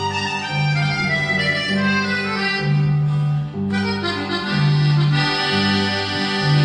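Instrumental break in a norteño-style regional Mexican song: an accordion plays a descending melodic run over an electric bass alternating between low notes in a steady bouncing pattern, with a brief drop-out a little past halfway.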